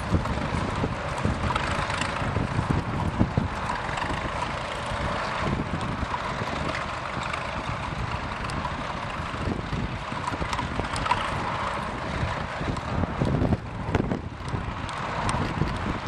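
Small vintage tractor engine running under load as it pulls a mounted plough through the soil, with wind buffeting the microphone.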